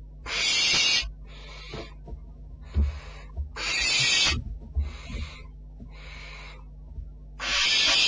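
Barn owl chick giving rasping, hissing 'snore' calls, the food-begging call of barn owlets. Three loud hisses come about three and a half seconds apart, each under a second long, with fainter hisses between them, over a steady low hum.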